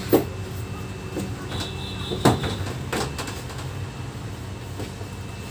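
Heavy wooden table being shifted by hand: a few dull wooden knocks and bumps, the loudest a little over two seconds in.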